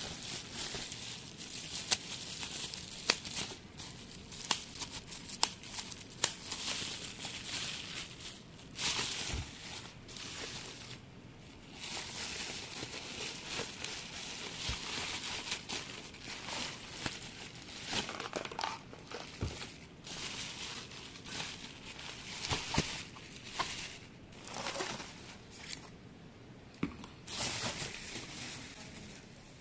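Bubble wrap crinkling and rustling as it is handled and pulled off a plastic tub, in bursts with frequent sharp crackles.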